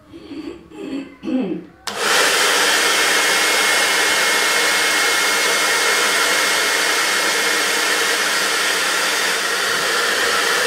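Handheld hair dryer switched on abruptly about two seconds in and blowing steadily and loudly, with a faint high tone over the rush of air.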